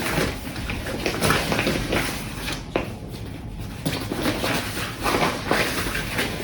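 Irregular rustling and scuffing of a self-inflating sleeping pad's fabric as it is pressed and rolled up by hand, with a short lull about three seconds in.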